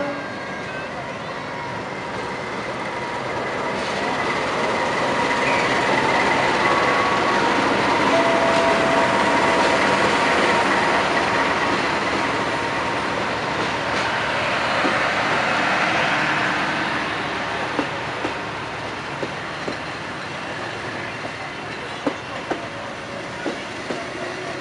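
A diesel-hauled passenger train rolling slowly past, its rumble and wheel noise swelling in the middle and then easing. Toward the end the wheels knock over rail joints in separate clacks.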